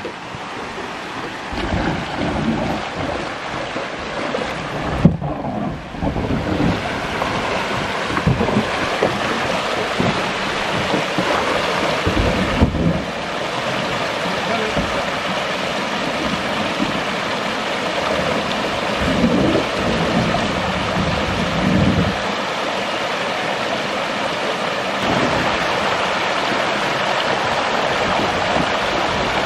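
Water rushing down a series of rocky river cascades, a steady loud hiss, with low thumps and rumbles now and then.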